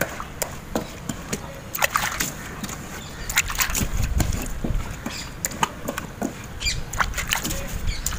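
Hands washing a painted cupboard's wet shelves: water splashing and sloshing, with irregular taps and knocks of hand against the shelves and a hand dipping into a metal basin of water near the end.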